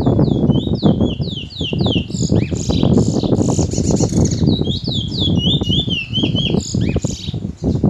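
Caged bullfinch singing rapid runs of clear, down-slurred whistled notes in two long phrases with a short break near the middle, the song pattern its keeper calls 'tee chor wheet'. A loud low rumble runs underneath throughout.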